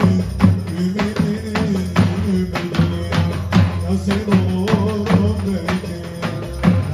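Davul, the large double-headed folk bass drum, beaten with a stick in a steady dance rhythm, with a wavering melody line playing over the beat.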